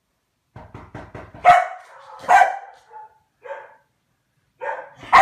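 A Komondor dog barks several times after a run of quick light taps. Two loud barks come about a second apart, then a couple of softer ones, and another loud bark near the end.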